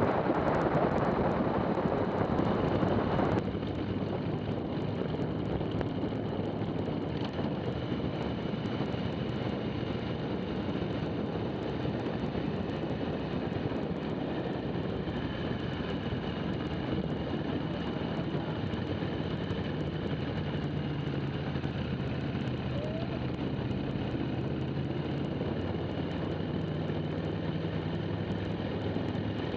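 Onboard sound of a motorcycle riding along: wind rushing over the microphone, loud for the first three seconds or so and then dropping off suddenly, with the engine running steadily underneath.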